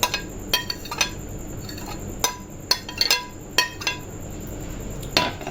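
A spoon clinking against a bowl again and again, irregular sharp clinks each with a short ring, as boiled potatoes are added to the bowl.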